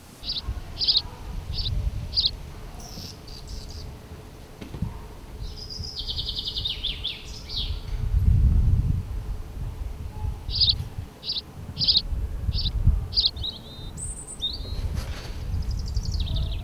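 Small songbirds singing: two runs of short, high, repeated notes, a little under two a second, with a buzzy trill between them, over a low rumble.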